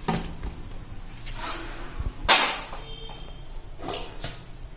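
A stainless steel plate handled and set down with one sharp knock about two seconds in, with fainter knocks and cloth rustles around it.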